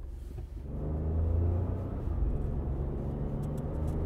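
Smart Fortwo's engine heard from inside the cabin: about a second in it comes up from a quiet idle to a steady low drone as the car moves off.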